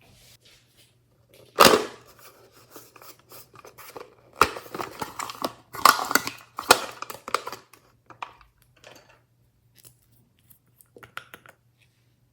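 Glossy slime being worked by hand, giving irregular sticky crackles, clicks and small pops, in louder flurries through the middle and only a few ticks near the end.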